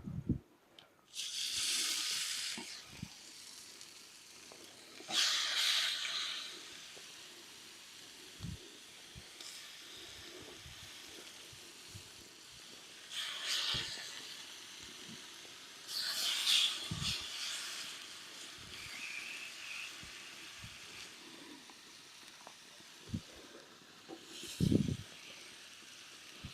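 Chicken sizzling on a hot stone: a steady hiss that flares into louder sizzling bursts of a second or two about five times, with a few soft knocks.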